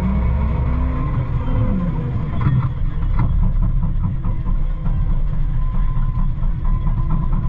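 CAT 908M compact wheel loader's diesel engine heard from inside the cab, its pitch rising and falling as the boom lifts the bucket, with a short run of knocks and rattles about three seconds in.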